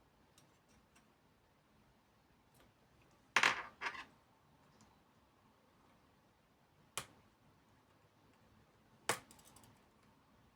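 Small tools or phone parts clicking and clattering on a hard work surface: a loud double clatter a little over three seconds in, a single sharp click about seven seconds in, and another near nine seconds followed by a brief rattle, with faint ticks between.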